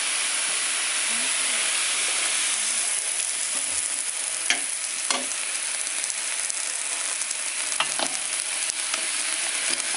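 Meat sizzling as it fries in a large aluminium pot, a steady hiss. A few sharp clinks of a metal ladle against the pot come about halfway through and again near the end.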